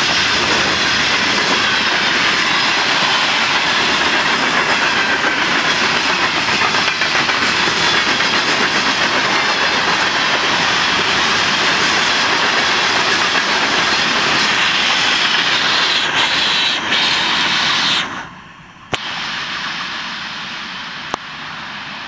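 Florida East Coast Railway freight cars rolling past at speed, a loud steady rush of wheels on rail with a high hiss. The sound drops off sharply about eighteen seconds in as the last car clears, leaving the fainter sound of the receding train.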